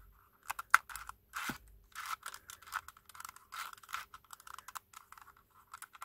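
A 2x2 twisty puzzle with cast polyurethane resin pieces, shaped as a chess knight, being turned by hand. A run of irregular light plastic clicks and scrapes comes as the layers rotate, with the pieces moving without clashing.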